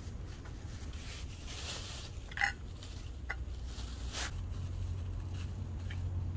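Cats eating from food laid out for them: scattered faint clicks and scrapes over a steady low hum, with one brief high chirp about two and a half seconds in.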